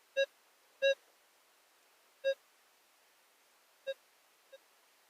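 Metal detector giving five short, same-pitched beeps at uneven gaps as the coil sweeps over a metal target in a dug hole, a target the prospector takes for a tiny piece of wire.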